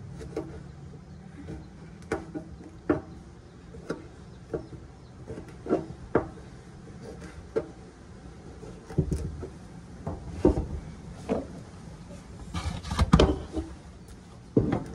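Kitchen knife chopping eggplant on a wooden cutting board: sharp knocks of the blade on the board, about one every second. A few heavier thumps come in the second half, the loudest cluster near the end.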